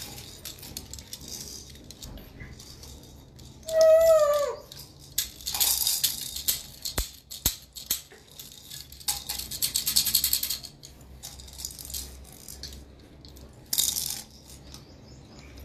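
Small plastic toy rattle shaken in short bursts of fast rattling, about six and ten seconds in and briefly near the end. A short voiced sound about four seconds in.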